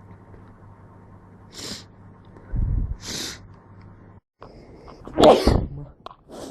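A person sneezing once, sharply, about five seconds in: a natural sneeze brought on by a head cold. It comes after a couple of short breaths in and a low thump.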